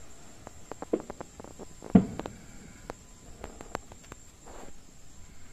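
Distant fireworks going off: one sharp boom about two seconds in, with scattered smaller pops and cracks before and after it.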